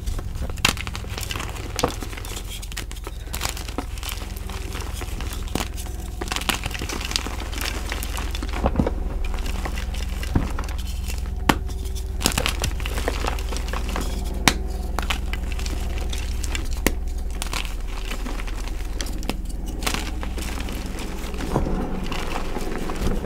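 Blocks of gym chalk crunching and crumbling in irregular sharp cracks and crackles, over a steady low hum.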